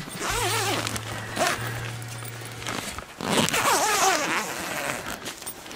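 Two-slider door zipper on a nylon winter ice-fishing tent being pulled along its track twice, each run lasting about a second and a half, the second starting about three seconds in.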